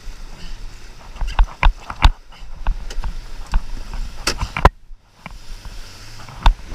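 Wind and water noise around a jetski on the water, broken by several sharp knocks and thumps, a cluster about a second and a half in, two more around four and a half seconds and one near the end.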